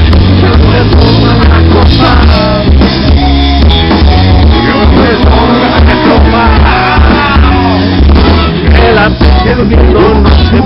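Live rock band playing loud through a PA system: sung vocals over electric guitar, drums and a strong bass.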